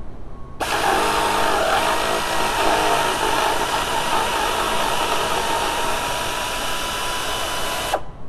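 Power ratchet spinning steadily with a whining hiss, backing out a T30 Torx mounting bolt of a radiator fan. It starts abruptly about half a second in, runs for about seven seconds, and cuts off suddenly near the end.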